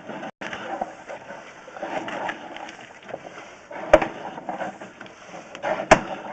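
Two sharp knocks about two seconds apart, over irregular handling noise.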